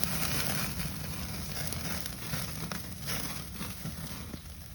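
Chicken skewers sizzling and crackling over a barbecue grill.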